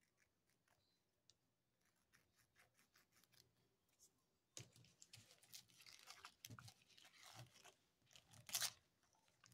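Near silence at first, then packaging rustling and crinkling as it is handled and torn open, a run of short crackles with a louder one near the end.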